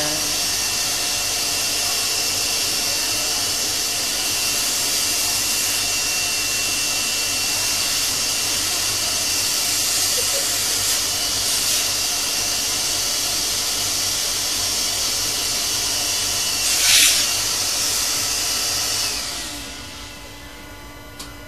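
Power saw running steadily while cutting a wooden jigsaw puzzle, with one brief louder surge near the end before it winds down and stops.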